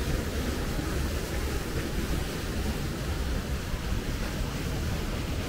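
Steady wind rumble on the microphone over the wash of river water, with no separate strokes or tones.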